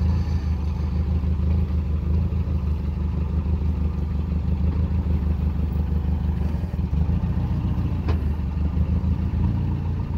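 Forklift engine running steadily with a low, even drone while the forklift holds a lifted engine on its forks.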